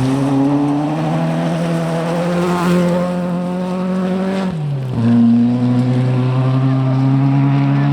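Rally car engine under load, revs climbing slowly. About four and a half seconds in the revs drop sharply, then climb again.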